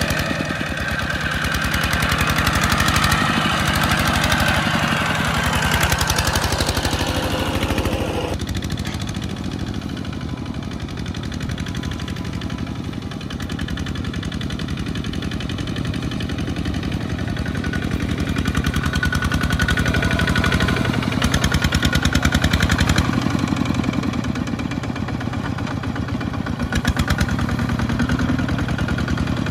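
Single-cylinder diesel engines of two-wheel walking tractors chugging steadily under load as they haul loaded trailers through deep mud. The sound changes abruptly about eight seconds in.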